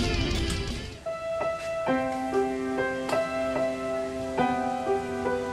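Background music: loud, dense music cuts off about a second in, and a soft keyboard melody of slow, held notes follows.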